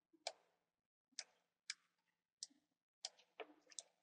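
Computer mouse clicks: a handful of sharp, separate clicks at irregular intervals, coming faster near the end.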